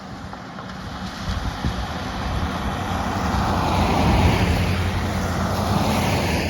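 A motor vehicle passing close by, its engine hum and tyre noise building from about a second in to a peak around four seconds, then starting to fade.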